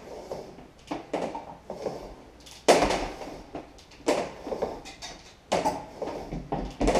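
Float switch cable being pulled by hand out through a loosened fitting on a plastic tank: a series of irregular scrapes and knocks as the wire is drawn out and handled, the loudest a little under three seconds in.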